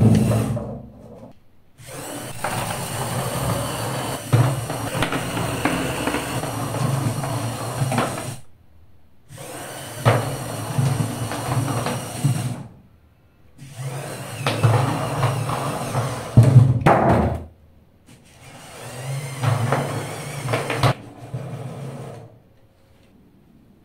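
Small electric LEGO Power Functions-style motors whirring through their gear trains as they drive test vehicles, some of them under load. There are several runs of a few seconds each, separated by short silences.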